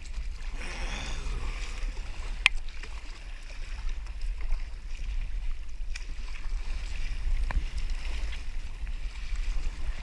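Wind rumbling on an action camera's microphone over water splashing and sloshing beside a plastic sit-on-top kayak. A sharp knock comes about two and a half seconds in, followed later by a few fainter clicks.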